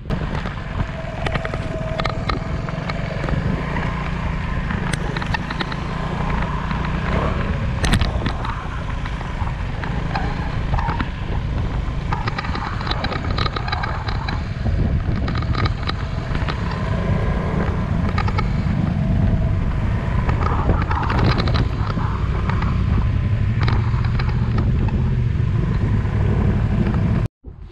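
Wind buffeting the microphone over a steady low rumble, with scattered rattling and crunching from riding along a gravel dirt road. It cuts off abruptly near the end.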